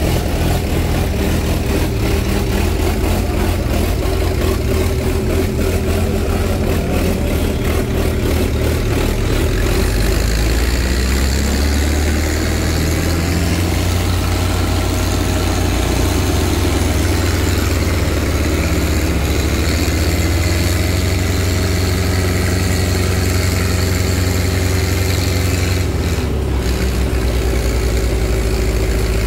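Tractor diesel engine running steadily, its engine speed shifting about a third of the way in.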